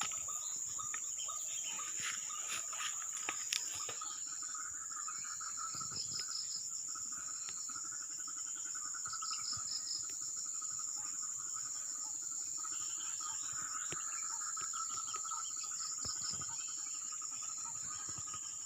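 Chorus of crickets and other insects trilling steadily and high-pitched, with a lower, rapid pulsing call that swells and fades several times.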